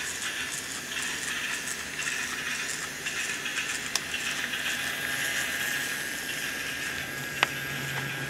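Wooden toy train rolling along its track: a steady, hissing whir, broken by two sharp clicks, the louder one near the end.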